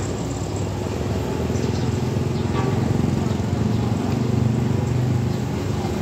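Motor grader's diesel engine running steadily, a low drone that grows louder through the middle, with a motorcycle passing close near the end.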